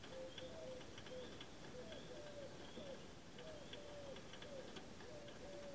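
Antique clockwork roasting jack running: faint, irregular ticking from its gear train, with many short chirps that often fall in pitch.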